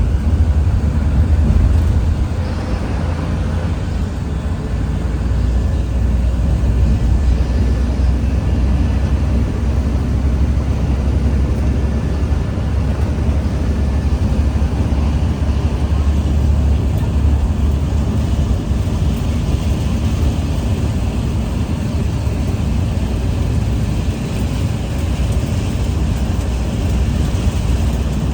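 Car driving along a highway: a steady low rumble of tyres and engine.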